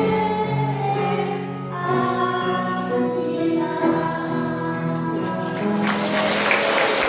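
Children's choir singing a worship song over an accompaniment, ending on a long held note. Applause breaks out about five seconds in as the song finishes.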